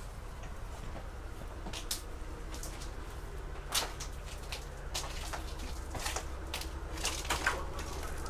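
Footsteps and small knocks inside an old railway carriage, irregular and about a second apart, over a steady low rumble.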